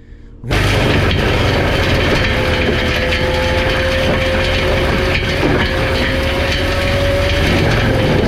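Skid steer with a forestry drum mulcher running and grinding through brush and wood, a steady whine under a dense crackling, crunching noise. It starts abruptly about half a second in.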